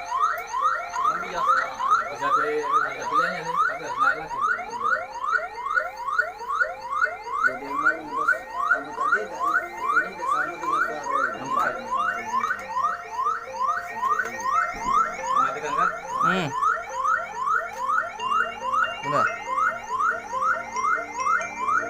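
Electronic siren of a flood early-warning system sounding a fast, repeating rising yelp, about two and a half sweeps a second, without a break.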